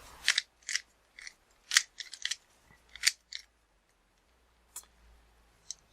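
Rubik's Cube layers being twisted by hand: a quick run of short plastic clicks and clacks over the first three and a half seconds, then two faint clicks near the end, as a second-layer move sequence is turned.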